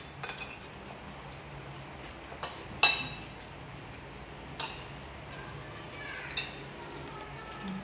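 Metal spoons and forks clinking against china plates and bowls as people eat. About five scattered clinks, each with a short ring, the loudest about three seconds in.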